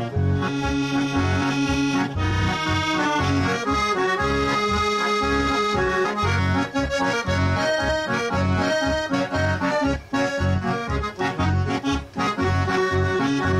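Accordion playing an instrumental interlude melody, with a steady pulsing bass beat underneath.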